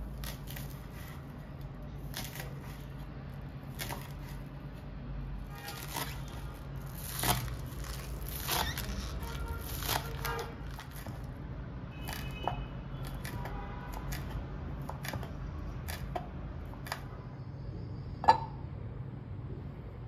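Chef's knife chopping spring onions on a wooden cutting board: separate knocks, roughly one a second and uneven in strength, over a steady low hum. Near the end, one sharp clack as a spatula knocks against a nonstick pan.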